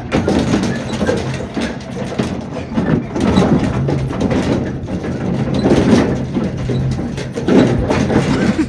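A vehicle driving off-road over rough ground: a steady low engine hum under constant rattling and irregular jolts.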